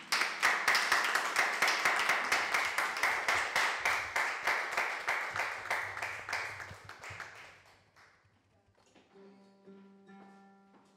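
Audience applauding as a flamenco dance ends, the claps falling into a fast, even beat and fading away after about seven seconds. Soft instrumental music comes in near the end.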